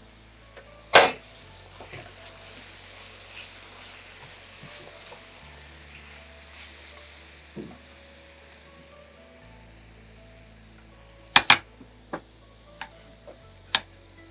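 Chicken and vegetables sizzling faintly in a frying pan, with one loud knock about a second in and, from about eleven seconds, a run of irregular knife chops on a cutting board. Soft background music underneath.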